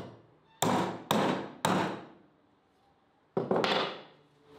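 Hammer blows on the metal fork clamp of a rotisserie spit. There are five sharp strikes, each ringing briefly: three about half a second apart, then after a pause two more in quick succession.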